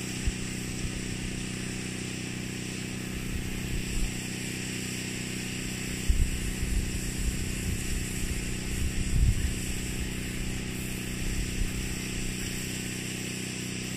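Small engine running steadily under the hiss of a water spray rinsing a bear hide, with irregular low rumbles about six to ten seconds in.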